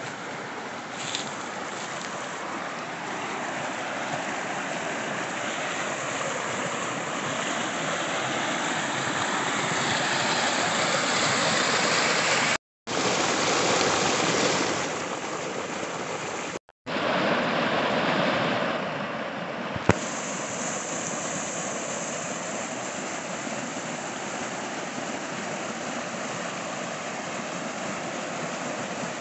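Creek water rushing over rocks and a small cascade: a steady rushing noise that grows louder towards the middle, cuts out twice for an instant, and has one sharp click about two-thirds of the way through.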